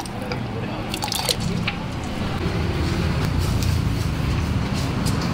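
Thick nasi goreng spice paste being ladled and scooped from a metal pot, with wet squelching and a few metal clicks in the first couple of seconds, over a steady low rumble.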